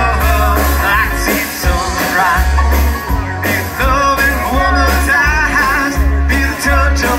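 Live band playing a country-rock song: drums and electric guitar over a strong low bass, with a wavering lead melody on top.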